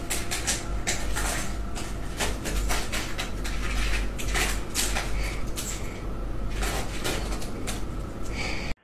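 Rapid computer-keyboard typing, a dense run of clattering key clicks that cuts off abruptly near the end.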